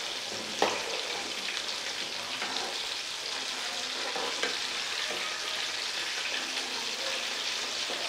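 Chicken pieces deep-frying in hot oil with a steady sizzle, while a perforated metal spoon turns them and scrapes and taps against the metal pan, with one sharper knock about half a second in.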